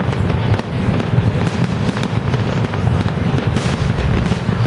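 A dense barrage of aerial fireworks shells bursting, a continuous rapid run of booms and crackles with no break.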